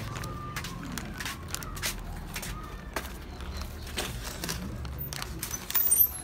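Background ambience: a steady low hum with scattered light clicks and taps, and a louder clatter near the end.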